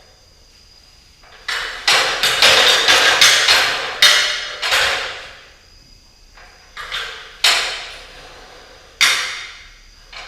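Ladder being raised and extended, its sections and rungs knocking together: a fast run of ringing clatters for about three seconds, then a few single knocks.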